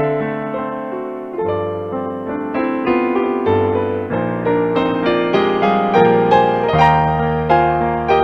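Solo piano music: a melody over a steady bass line, each note struck and then fading.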